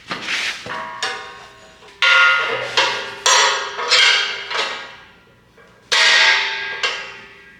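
Steel knocked together, giving a series of ringing metallic clangs: about eight irregular strikes, each ringing on and fading, the loudest about two, four and six seconds in.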